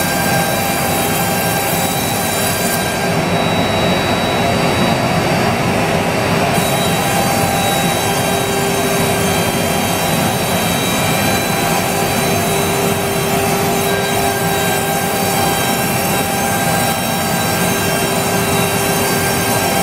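CNC router spindle milling a wood-based sheet: a loud, steady cutting noise with several thin steady tones that fade in and out as the head travels.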